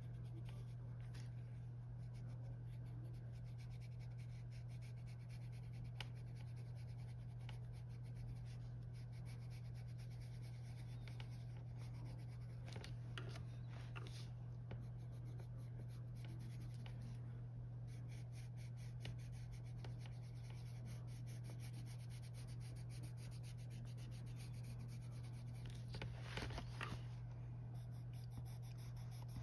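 Arteza colored pencil scratching across coloring-book paper in steady back-and-forth shading strokes, a little louder near the end, over a steady low hum.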